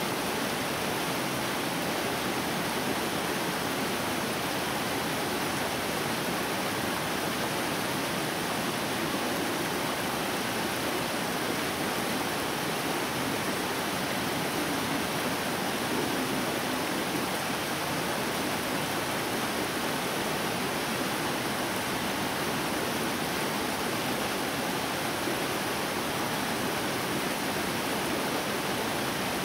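Mountain stream rushing over rocks and small cascades, a steady even rush of water.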